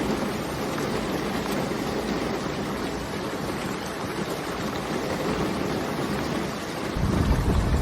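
Steady rain, an even hiss of falling water. About seven seconds in a deeper rumble comes in and the sound grows louder.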